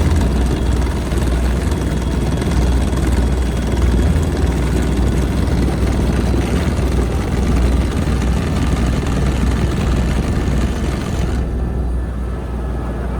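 Helicopter rotor and engine running steadily, a loud low drone heard from inside the cabin; the higher hiss drops away about eleven seconds in.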